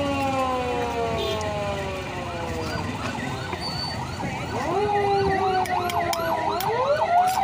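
Street siren: long wailing tones that slowly fall in pitch, then from about four seconds in a fast up-and-down yelp, about three cycles a second, growing louder near the end.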